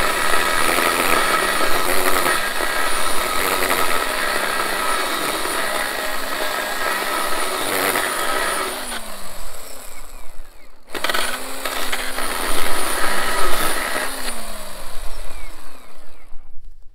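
RYOBI One+ 18 V cordless electric chainsaw cutting through a pine post, its motor whining steadily under load. It stops briefly about ten seconds in, then speeds up again and cuts for about five more seconds before winding down near the end.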